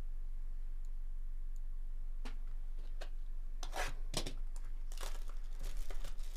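Plastic wrapping being torn and crinkled off a sealed Topps Tier One trading-card box, a run of sharp crackles starting about two seconds in.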